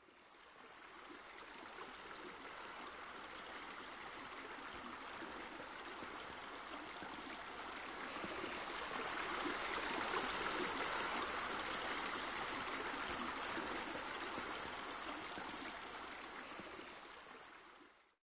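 Water spilling from a raised spa into a swimming pool: a steady splashing rush that fades in, is loudest about halfway through, and fades out near the end.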